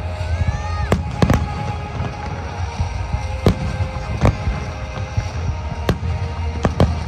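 Aerial fireworks display: a string of sharp bangs a second or so apart as shells burst, with a whistling shell rising and then dipping in pitch just before the first bang.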